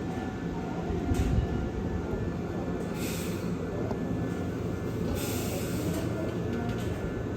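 Hankyu electric train running on the track: a steady low rumble with several short bursts of hiss.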